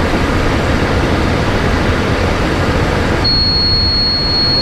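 Steady in-flight cockpit noise of a Cessna Citation Bravo, the rush of airflow and its twin turbofan engines. Near the end a single steady high-pitched tone sounds for just over a second.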